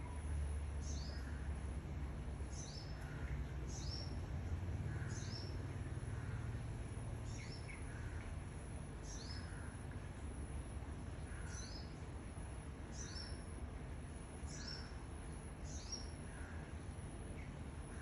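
A songbird calling: short, high chirps that slide downward, often in pairs, repeating about every one and a half to two seconds, with softer lower notes between them. A steady low rumble of background noise runs underneath.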